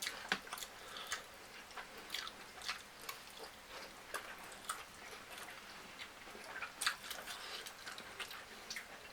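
Close-up chewing and biting: irregular wet mouth smacks and clicks of someone eating a meal of fried chicken and rice.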